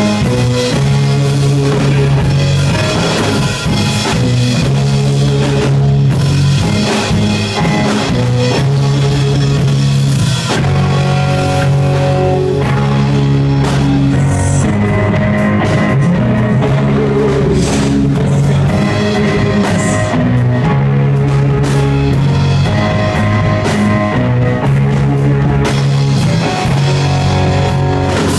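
A rock band playing live and loud, with drum kit, guitar and bass in a steady beat.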